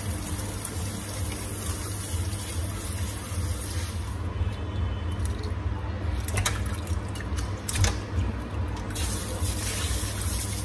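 Tap water running into a stainless steel sink over pig trotters being rinsed. About four seconds in the flow thins and a knife scrapes the hair off the trotters, with a few sharp scrapes.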